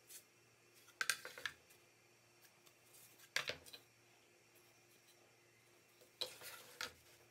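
Thin wooden pattern templates being handled, slid and set down on a workbench: three brief clusters of taps and scrapes, about a second in, around the middle and near the end, over a faint steady hum.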